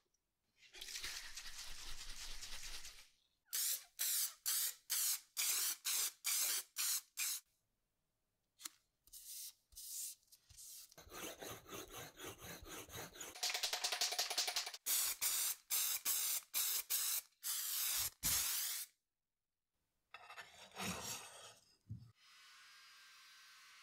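Close-up hand-work sounds on a flat steel bar. A hiss lasts about two seconds, then come many quick rubbing strokes, about two a second, as a foam roller is rolled back and forth over a paper knife template laid on the steel.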